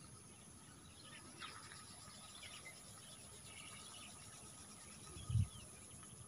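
Quiet outdoor field ambience: a few faint bird chirps over a faint steady insect buzz, with one brief low thump about five seconds in.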